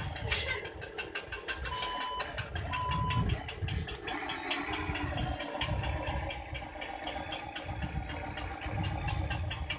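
Scale RC Hino 700 dump truck's electric motor and gearbox whirring under load as it crawls through mud, with rapid clicking and rattling from the drivetrain and surges of low rumble.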